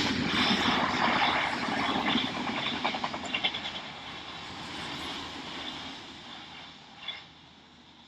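Odakyu Odawara Line electric train passing over a level crossing, its wheels clattering over the rails. It is loudest in the first few seconds, then fades away as the train moves off.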